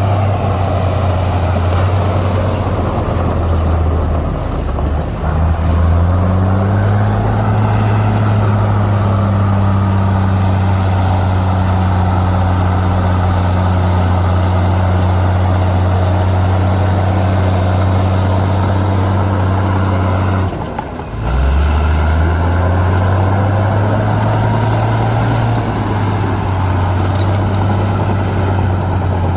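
Heavy diesel engine of earthmoving machinery running steadily under load. Its pitch climbs about six seconds in and holds. It drops out briefly around twenty seconds, then climbs again.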